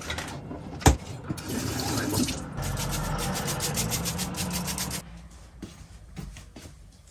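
Water running and splashing in a kitchen sink as potted pothos plants are watered. It stops abruptly about five seconds in, leaving only a few faint light clicks.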